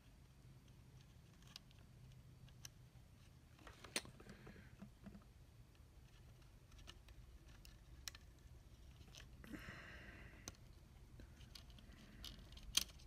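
Near-quiet workbench handling: scattered small clicks and taps as wires and small parts are fitted, with a sharper click about four seconds in and another near the end, and a soft hiss around ten seconds in.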